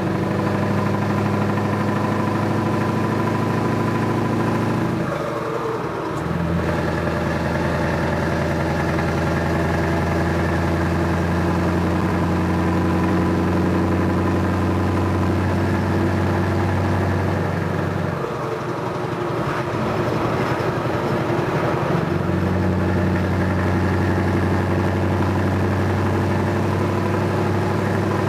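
Heavy truck's diesel engine pulling steadily, heard from the cab. Its note breaks up and settles at a new pitch about five seconds in, and again around eighteen to twenty-two seconds, as with gear changes.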